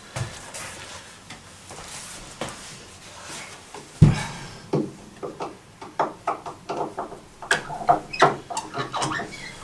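Irregular clicks, knocks and light scrapes of parts being handled and taken off a grand piano's damper mechanism, with a heavier thump about four seconds in and quicker clicking in the second half.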